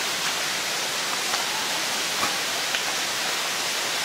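A steady rush of running water, with a few faint ticks about a second in and again past the middle.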